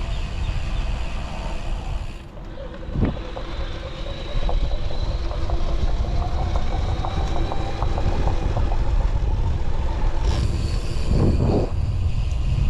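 Canyon Roadlite:ON e-bike's Fazua Drive 60 mid-drive motor under way, with irregular rattling clicks over a thin motor whine. Wind rumbles on the microphone throughout.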